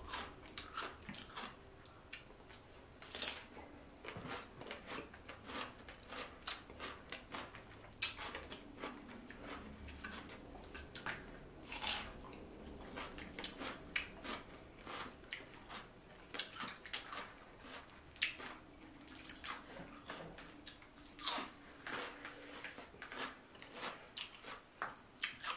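Close-miked eating sounds: chewing and biting into boiled seafood, with irregular sharp clicks throughout as clam and mussel shells are picked from the pile and eaten from.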